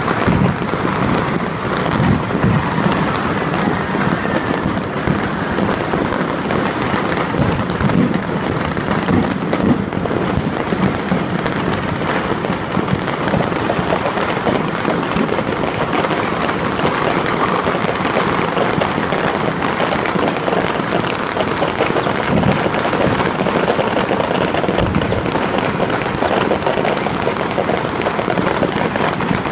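Many fireworks and firecrackers going off at once across a city, merging into a dense, unbroken crackle and banging with no pause.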